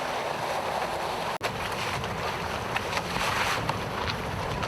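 Wind buffeting the microphone over the steady wash of water around a boat under way. The sound drops out for an instant about a second and a half in.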